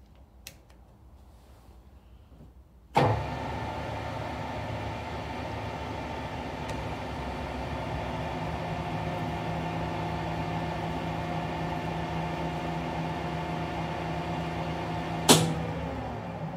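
Center lathe starting up about three seconds in and running steadily with a hum while a tap held in a spring-loaded tap holder is run into the workpiece under power. A sharp clack comes near the end, after which the running note falls as the spindle slows.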